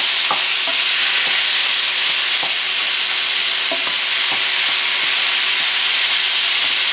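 Raw ground beef and Italian sausage sizzling steadily in a hot skillet with sautéed onion and green bell pepper as the meat starts to brown, while a wooden spoon breaks it up with a few scattered scrapes and taps.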